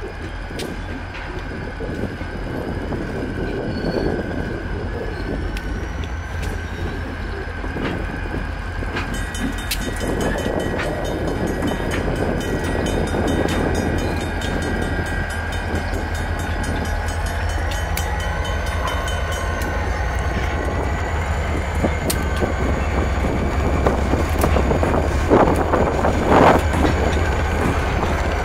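A consist of EMD SD40-series diesel locomotives rolling slowly past, their engines running with a steady deep rumble and a steady whine. Loudness rises gently as the units come by, and a couple of sharp metallic clanks come near the end.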